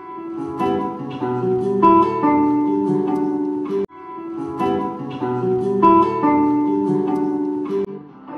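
Sevillanas music on acoustic flamenco-style guitar: strummed chords with a picked melody. The same phrase plays twice, broken by a sudden cut just under four seconds in.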